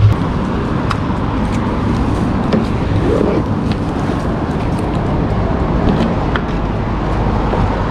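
Steady outdoor road-traffic noise with a few light clicks, among them the key working the motorcycle's fuel-cap lock; no engine is running.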